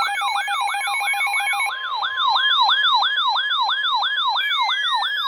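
Electronic siren warbling fast and evenly up and down, about four sweeps a second. A steady tone and slow, gliding falling tones are layered over it, like a mix of alert tones.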